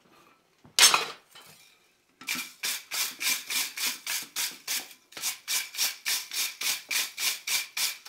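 Steel wire hand brush scrubbing a red-hot twisted iron ring on the anvil face to knock the forge scale off, in quick strokes about three to four a second with a brief pause midway. A single loud metal clank on the anvil about a second in, just before the brushing starts.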